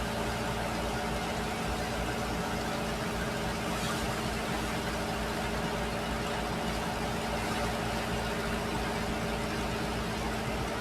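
An engine running steadily at a constant speed, its even hum mixed with a steady hiss.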